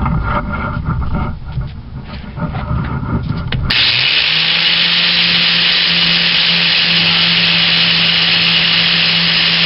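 A few knocks over a low rumble, then about four seconds in a grinder starts suddenly and runs steadily against a steel lawn mower blade, an even grinding hiss over a steady motor hum.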